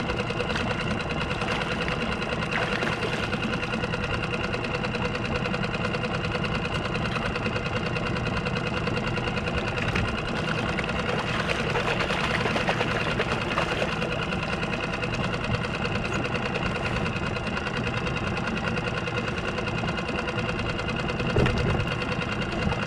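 Small outboard motor running steadily at low speed, an even mechanical rattle that holds unchanged throughout.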